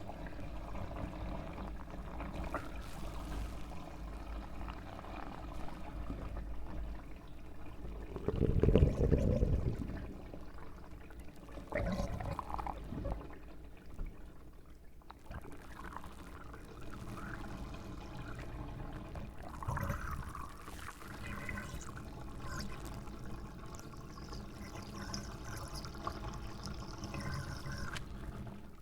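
Rain with water pouring and trickling, a steady wash of noise. About a third of the way in, a louder, deeper surge of water lasts a couple of seconds, and a smaller one follows soon after.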